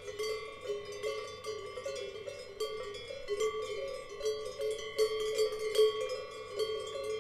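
Several cowbells of different pitches clanking in an uneven jangle, the bells of grazing cattle, each strike ringing on briefly.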